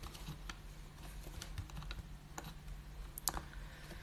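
Faint, irregular clicks of a computer keyboard, a few taps a second with a quick pair about three seconds in, over a low steady hum.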